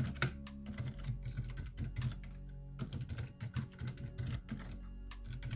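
Typing on a computer keyboard: a run of quick, uneven key clicks.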